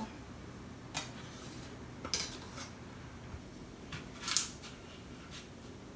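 Kitchen knife cutting into a Gala apple on a plastic cutting board: a few separate sharp clicks and crunches about a second apart, the loudest about four seconds in.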